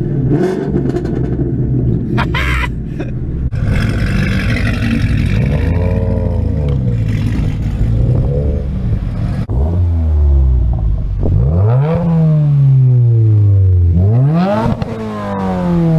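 Car engine revved repeatedly from idle: a few short blips, then two bigger revs that climb quickly and fall back slowly.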